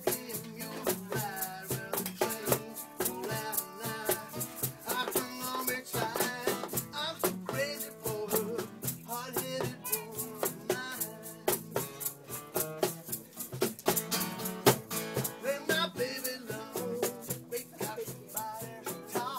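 Live acoustic jam: an acoustic guitar strummed while a man sings, with an egg shaker and a cajón keeping a steady, fast rhythm.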